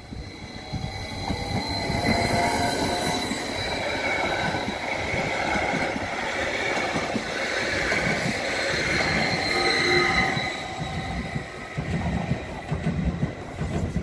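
Stadler FLIRT electric multiple unit (ETR 170) passing close by, wheels rolling on the rails with steady high-pitched whining tones above the rumble. It grows loud about a second and a half in and fades after about ten seconds as the train moves away.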